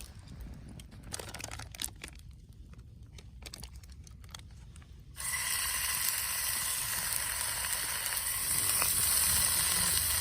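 Light clicks and clinks, then about five seconds in a sudden loud, steady sizzle of food frying in a hot pan.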